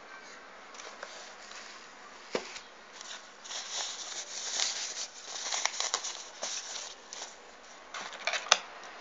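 Unboxing handling sounds: packaging rustling in irregular spells and light clicks and knocks of parts being handled, with one sharp click near the end the loudest.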